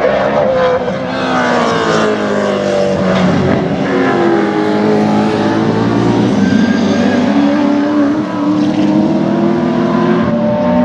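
Sports sedan race cars passing at speed, led by a NASCAR V8-powered VK Commodore. Several loud engine notes overlap, their pitch sliding up and down as the cars rev, lift and change gear through the corners.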